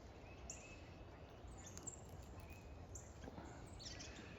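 Faint, scattered chirps of small songbirds over a low, steady background rumble.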